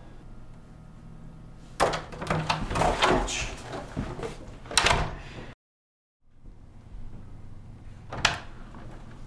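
An interior office door opened and pushed shut, with knocks and scuffs and the loudest knock about five seconds in; the sound then cuts out to dead silence for under a second. One sharp click comes near the end.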